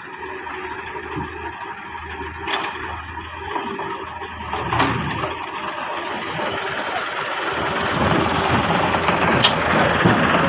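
Diesel engines of a wheeled excavator and Massey Ferguson 260 tractors running together, with a few sharp clanks as the excavator works, loading soil into the tractor's trolley. The engine noise grows louder toward the end.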